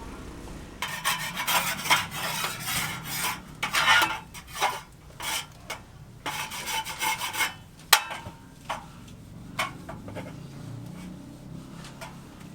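Repeated rough scraping strokes, uneven in rhythm, for about seven seconds, ending with a sharp knock about eight seconds in, followed by a few fainter scrapes.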